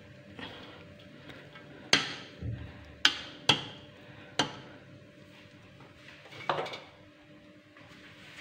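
Metal knocking against a large aluminium cooking pot about six times, sharp and separate, as boiled rice is tipped in and spread in a layer.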